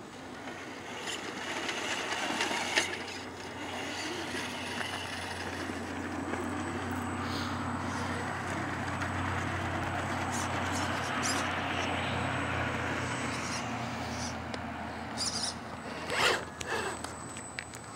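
Electric RC rock crawler's motor and geartrain whining as it crawls slowly over rock, its tyres scraping and grinding on stone. A couple of sharp knocks, about three seconds in and near the end, as the truck bumps against the rocks.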